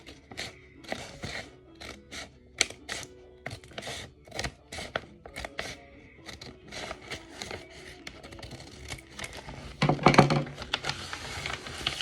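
Scissors snipping through paper in a quick run of short sharp cuts, over background music, with a louder stretch of paper noise about ten seconds in.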